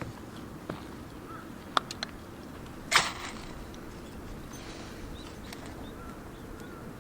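Outdoor ambience: a steady low background noise with a few faint bird chirps, broken by several sharp clicks or knocks, the loudest about three seconds in.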